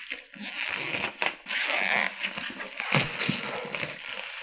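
Plastic shrink wrap being torn and crumpled off a board game box, a continuous crinkling and crackling.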